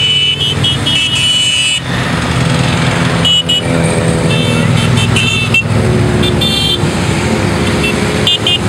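A long column of motorcycles passing, their engines running together in a steady hum, with short high-pitched horn toots sounding again and again throughout.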